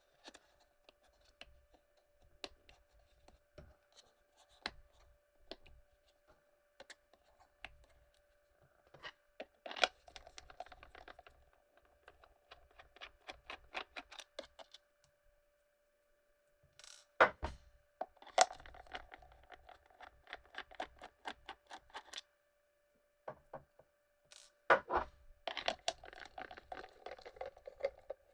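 Clicks, scrapes and rattles of a plastic milk frother and its base being handled and taken apart, coming in irregular clusters, over a faint steady tone.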